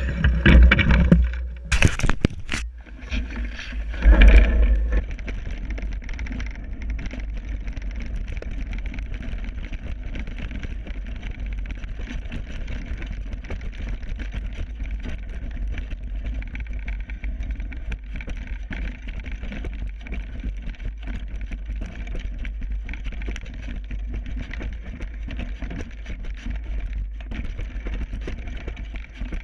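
Mountain bike rolling down a rocky gravel trail: a steady rumble of tyres over loose stone with many small rattles and knocks from the bike. A few loud knocks and a louder burst come in the first few seconds.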